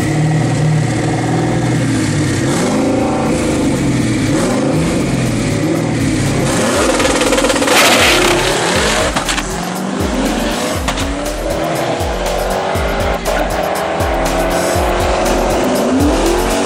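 Twin-turbocharged 2011 Ford Mustang GT 5.0 V8 making a drag-strip pass. The engine revs at the line, then launches about eight seconds in with a burst of noise. Its pitch then climbs again and again through the gearshifts. Background music with a steady beat runs under it.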